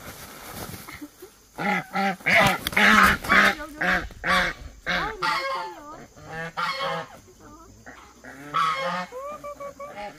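Domestic geese honking, many short calls one after another in a rapid series.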